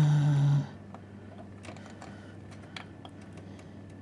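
Faint, scattered light clicks and taps of small plastic parts being handled as a fan cable connector is worked onto a motherboard header inside a PC case. A brief steady hum opens it.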